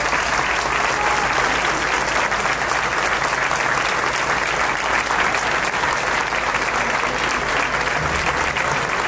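Crowd applauding steadily after a speech ends.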